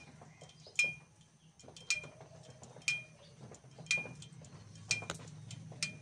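Hot exhaust of a Hero motorcycle ticking after a ride: sharp metallic clicks, each with a short ring, about once a second, with fainter ticks between. The clicks come from the catalytic converter's thin wire mesh as it heats and cools. The mechanic calls this 'kat kat' sound harmless, and says it stops on its own after some 30,000–40,000 km.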